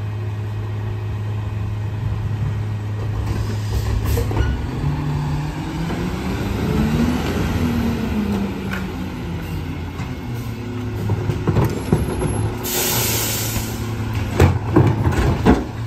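Rear-loader garbage truck's diesel engine idling steadily, then revving up and easing off as the truck pulls ahead. Near the end, a short loud hiss of its air brakes as it stops, followed by several sharp knocks as a trash cart is tipped into the hopper.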